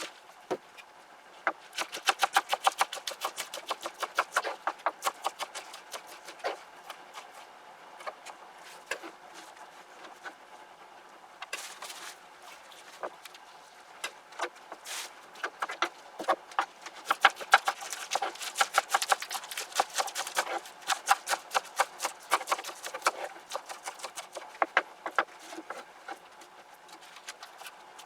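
Onions being chopped quickly with a knife on a cutting board: runs of rapid knocks, many a second, with pauses between them. The busiest stretches come about two seconds in and again from about sixteen to twenty-one seconds.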